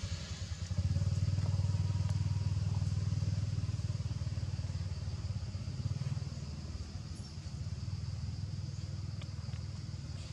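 A motor vehicle engine running nearby with a steady low hum, loudest from about a second in, then slowly fading. A faint steady high-pitched tone runs underneath.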